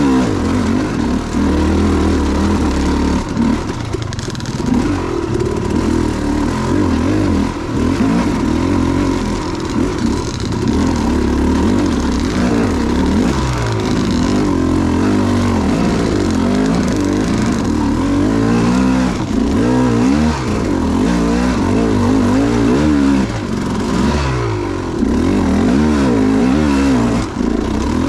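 KTM 300 two-stroke dirt bike engine being ridden on a trail, its revs rising and falling continuously as the throttle is worked.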